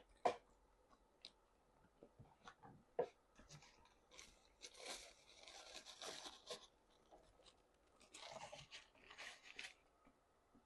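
Close-up mouth sounds of someone chewing crunchy food: two sharp bites or clicks, then two longer spells of crunching chews about halfway through and near the end.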